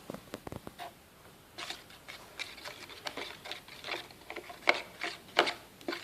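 A spoon stirring glue mixed with laundry detergent in a container as it thickens into slime, giving irregular small clicks and taps against the container.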